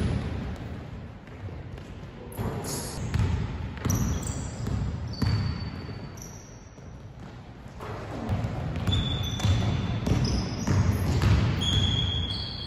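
A basketball bouncing on a hardwood gym floor in a large indoor hall, with repeated dull thuds and a sharp impact at the very start. Short high sneaker squeaks from players cutting on the court come and go, most of them in the second half.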